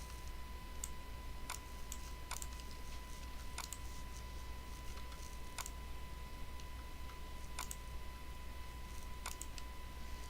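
Computer mouse clicking at irregular intervals, about once a second, some clicks in quick pairs, over a steady low electrical hum and a faint high whine.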